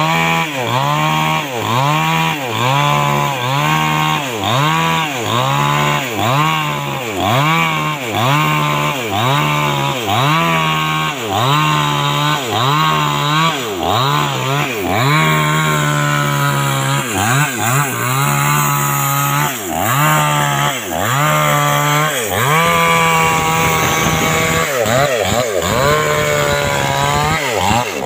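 Two-stroke chainsaw revving up and dropping back about once a second as it cuts into wood. Near the end it holds steady at high revs through a longer cut.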